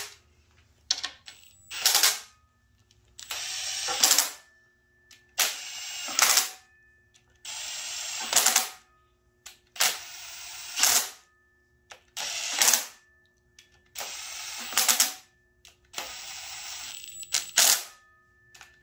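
Cordless impact driver running bolts down into an LS engine's lifter valley cover plate, one bolt after another about every two seconds: each bolt spins in for about a second and ends in a short, louder burst of hammering as it seats.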